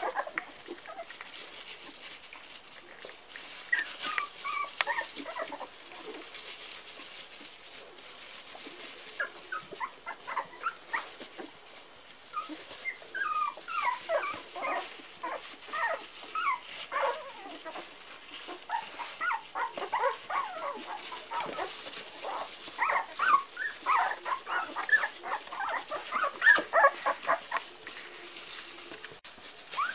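Four-week-old Parson Russell Terrier puppies whimpering and yipping, many short high-pitched calls in scattered bunches that come thick and fast through most of the second half.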